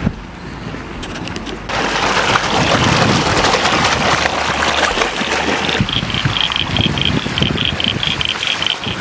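Rainwater runoff rushing along a grassy drainage channel, with wind rumbling on the microphone; about a second and a half in, the running water gets suddenly louder. From about six seconds in, a high chirp repeats about four times a second over the water.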